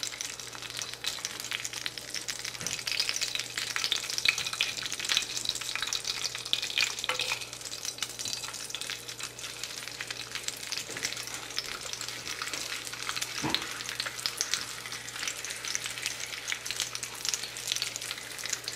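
Hot oil crackling and sizzling as dried chiles are quickly fried in a pan, a dense, even crackle of many small pops.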